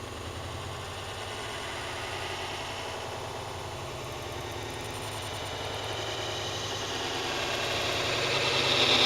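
Air Tractor AT-502 crop duster's PT6A turboprop engine running at a distance, a steady whine and drone that grows louder toward the end as the plane comes back in.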